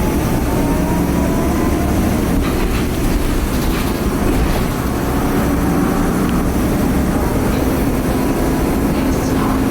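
Inside a moving 2010 Nova Bus LFS articulated city bus: the Cummins ISL diesel engine running under a steady low rumble of engine and road noise, with a thin turbo whine that rises slightly over the first couple of seconds and then fades. A few light rattles come through in the middle.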